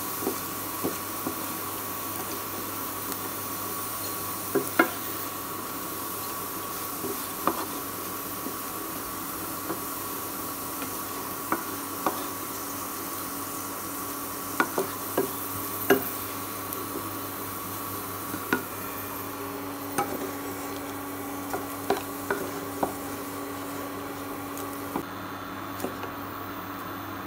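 A wooden spoon scraping and knocking against a nonstick kadai, with about a dozen short, irregular knocks as fried potato cubes are scooped out. Under it run a faint sizzle of hot oil and a steady hum.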